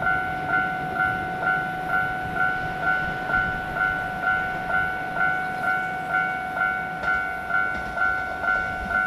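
Japanese railway level-crossing warning bell ringing in a steady rhythm, about two strikes a second, warning that a train is approaching.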